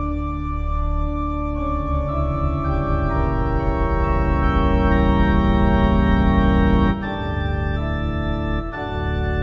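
Yamaha P-125 digital piano played on its Organ Tutti voice: full, sustained organ chords that build up note by note, with a clear chord change about seven seconds in and another near the end.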